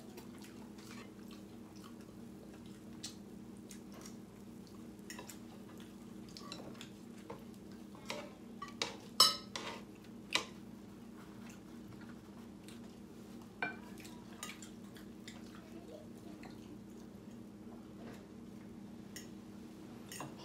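Cutlery clinking and scraping on plates during a meal: scattered light clicks, with a louder run of clinks about nine to ten seconds in.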